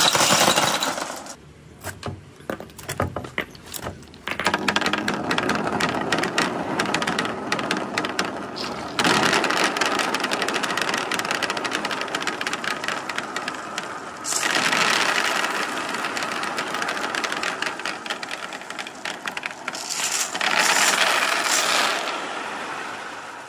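Many glass marbles rolling and clattering down perforated pegboard ramps, a dense rattle of clicks, with billiard balls rolling among them. The clatter thins to scattered clicks for a couple of seconds near the start, then stays dense.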